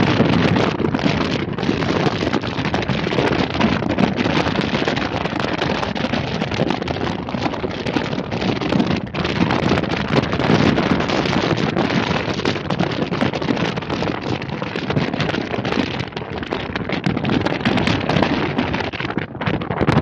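Wind buffeting the microphone: a steady, loud rush with frequent gusty flutters.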